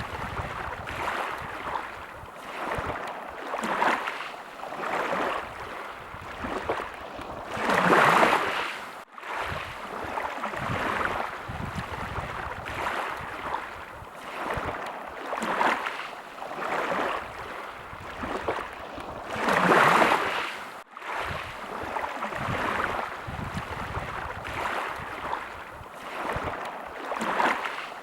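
Small sea waves lapping, swelling and falling back every second or two, with two bigger surges about eight and twenty seconds in.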